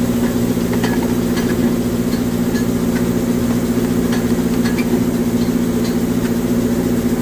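Tractor engine running at a steady speed, driving a grain bag extractor as its bag roller turns, with a few faint clicks over the hum.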